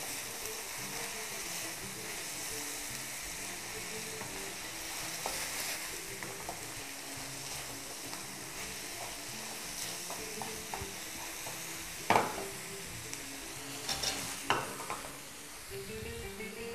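Food sizzling as it fries in a frying pan while being stirred with a spatula. A few sharp knocks of the utensil against the pan come near the end, the loudest at about twelve seconds.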